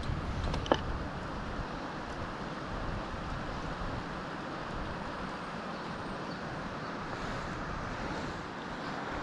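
Steady rushing outdoor background noise, with one sharp click just under a second in.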